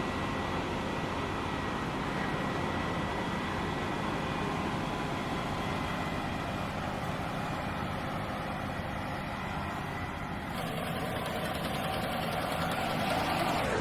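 CLAAS Lexion 8800 combine harvester running steadily while it unloads grain through its auger into a trailer. The tone shifts slightly about ten seconds in.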